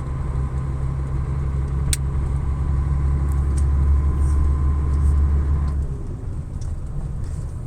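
Truck engine and road noise heard inside the cab while driving: a steady low drone that eases off about six seconds in, with a single sharp click about two seconds in.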